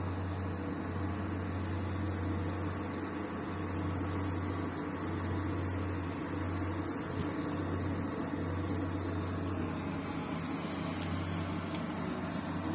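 Bulldozer's diesel engine running with a steady low drone.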